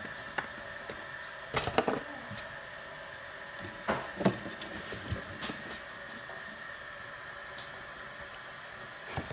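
Kitchen tap running with a steady hiss, with a few light knocks of kitchenware in between.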